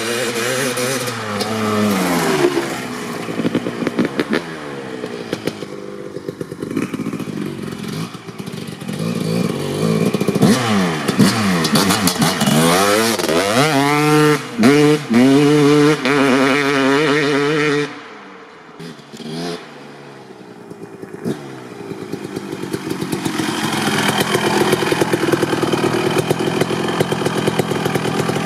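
1995 Honda CR250R's 250cc single-cylinder two-stroke engine, with a Pro Circuit R-304 Shorty silencer, revving hard as the dirt bike accelerates, its pitch rising and falling quickly with the throttle. The sound drops off sharply about two-thirds of the way through, then builds again near the end as the bike comes back close.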